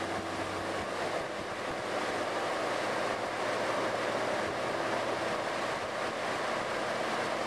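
Steady rushing of water over the low hum of a running Land Rover engine.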